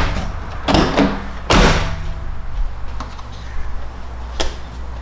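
Jeep Wrangler JL's swing-out tailgate being opened and closed after its hinge bolts were retorqued, to check the alignment. Three loud knocks come in the first two seconds, then a fainter knock about three seconds in and a sharp click near the end.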